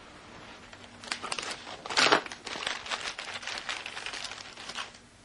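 Paper being handled: a run of quick, irregular crinkling rustles that starts about a second in, is loudest about two seconds in, and stops near the end.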